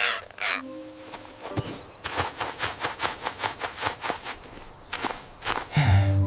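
A quick run of light, even taps, about four or five a second, with background music starting near the end.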